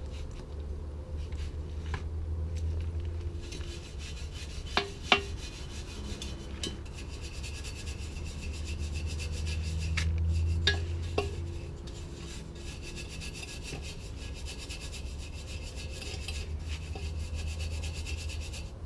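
Brush scrubbing cleaner over a rusted metal part of a motorcycle, a steady rasping rub lifting the rust. A few sharp knocks, the loudest about five seconds in and two more around ten to eleven seconds.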